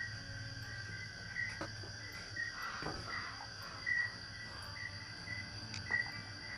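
Insects chirping in the forest: a steady high trill under a shorter chirp that repeats about twice a second, with a few faint clicks or rustles.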